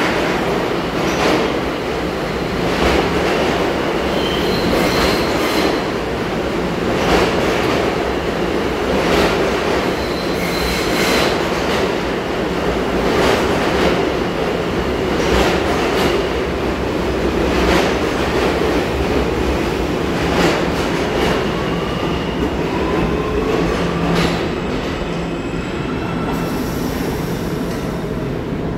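R211A New York City subway train pulling out of an underground station: a steady rumble with sharp wheel clacks about every two seconds, and a faint motor whine rising in pitch later on as it gathers speed.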